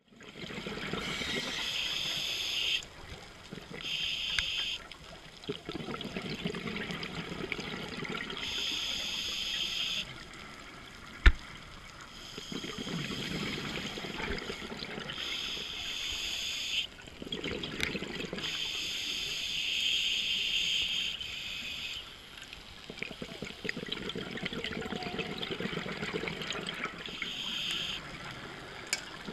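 Scuba diver breathing through a regulator underwater: a hissing inhale alternating with a bubbling exhale, in slow, uneven cycles. One sharp knock about eleven seconds in is the loudest sound.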